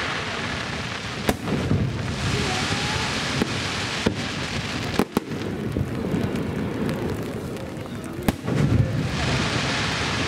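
Aerial firework shells bursting in a starmine barrage: sharp bangs at irregular intervals, two of them close together about five seconds in, over a continuous rushing noise.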